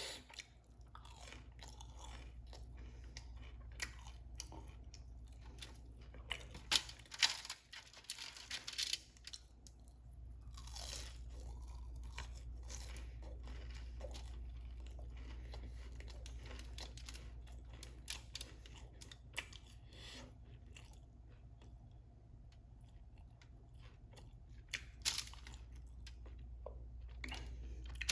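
A person eating crispy chicken wings close to the microphone: irregular bites and chewing with repeated crunches, louder clusters of crunching about a quarter of the way in and again near the end.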